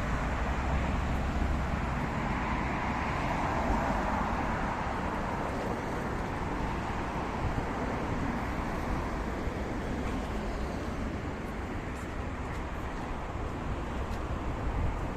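City road traffic noise: a steady wash of passing cars with a low rumble, one pass swelling and fading a few seconds in.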